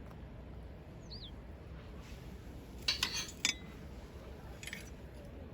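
Camp cookware or utensils clinking a few times as they are handled, with a short ringing note after the main cluster about three seconds in. A single short bird chirp comes about a second in.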